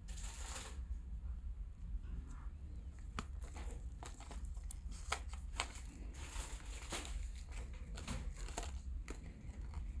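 Handling noise from a soft PVC-jacketed Ethernet patch cable being bent and coiled in the hands: scattered small clicks, rubbing and soft swishes over a steady low hum.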